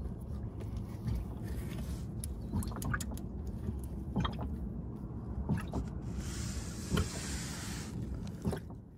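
Engine oil draining in a steady stream from a Mercedes W124 E320's oil pan into a plastic drain container. Scattered light clicks and knocks run through it, and a hiss lasting under two seconds starts about six seconds in.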